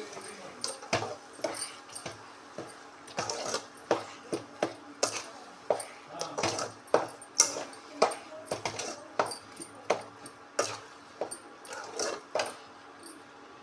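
A spoon stirring jackfruit jam as it boils with sugar in a pan, knocking and scraping against the pan in irregular sharp clicks, a few a second.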